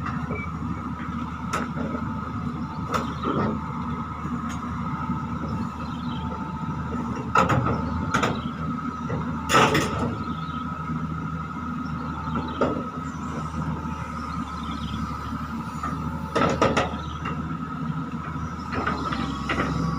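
Hitachi excavator running steadily with a high whine over the engine drone while it is unloaded from a trailer, with loud metallic clanks several times, the loudest about nine and a half seconds in.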